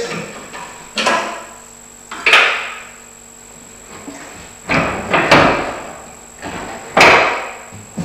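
About five sharp clunks and knocks, each ringing briefly, as a pre-sweeper attachment is unplugged and unhooked from a Hako Quick Connect mount.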